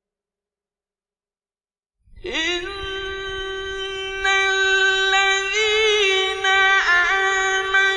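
Silence for about two seconds, then a man's voice in melodic Quran recitation (mujawwad style): one long, high held note with a few ornamental turns, drawing out the opening of a verse.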